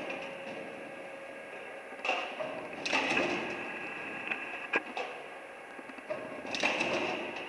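Standing seam metal roofing roll forming machine running: a steady machine hum with a few louder noisy swells of metal working through it, and a sharp click about two-thirds of the way in.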